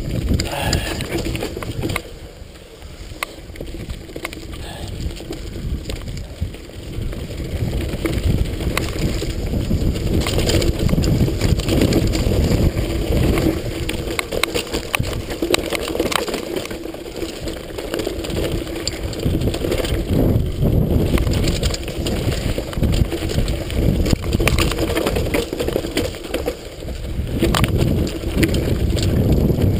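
Pivot mountain bike descending rocky dirt singletrack: tyres rumbling over rocks and roots, with constant rattling and knocks from the bike. It is quieter for a few seconds near the start, then grows louder and rougher.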